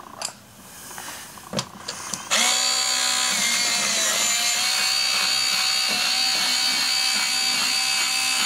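X-Acto electric pencil sharpener grinding a colored pencil: after a few light knocks as the pencil is fitted, the motor starts abruptly about two seconds in and runs with a steady whine, dipping briefly in pitch as it bites into the pencil.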